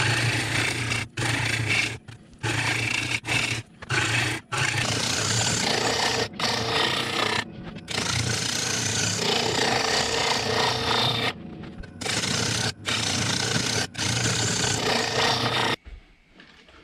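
Gouge cutting a spinning apple-wood bowl blank on a wood lathe: a loud, steady scraping shear of the tool peeling shavings, over the lathe motor's low hum, broken by several brief sudden gaps. It stops abruptly near the end as the lathe is switched off.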